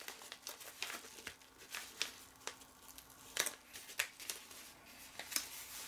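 Padded paper mailer envelope rustling and crinkling as it is handled and turned over, in short irregular crackles.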